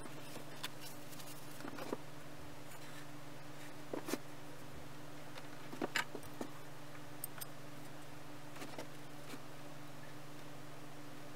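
Light wooden knocks and clicks as glued pine rings are stacked and pressed together on a workbench. The knocks are scattered, with the loudest about six seconds in, over a steady low hum.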